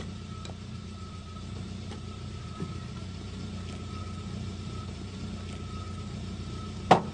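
A car engine idling steadily, with a thin steady high tone over the rumble. A single loud, sharp bang comes near the end.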